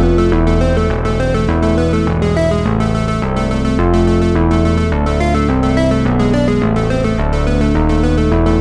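Background music with a steady beat and held chords that change every half second or so.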